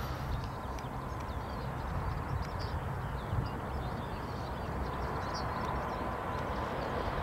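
CRRC Bison electric locomotive approaching from a distance: a steady low rumble with a faint thin whine.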